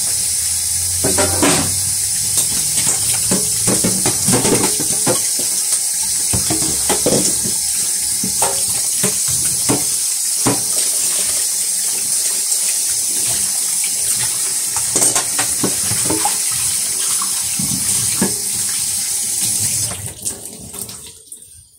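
Kitchen tap running steadily into a stainless steel sink while a metal colander and plates are rinsed under it, with scattered clinks and knocks of the dishes. The tap is turned down near the end and the water sound drops away.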